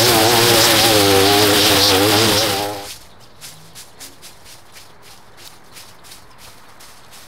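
Small gasoline lawn-equipment engine running with a wavering pitch, then shutting off suddenly a little under three seconds in. After that come light, evenly spaced footsteps, about three a second.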